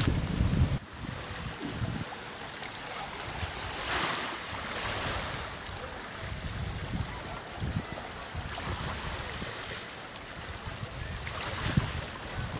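Sea waves washing and swelling in slow surges, with wind buffeting the microphone in the first second.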